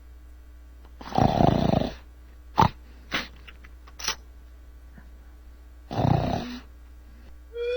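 Snoring sound effect: two loud, rough snores about five seconds apart, with a few short clicks in between.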